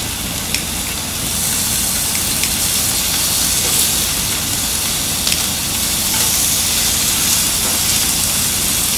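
Beef sirloin sizzling on a hot grill plate, a steady hiss that grows a little louder about a second in, with a few faint clicks.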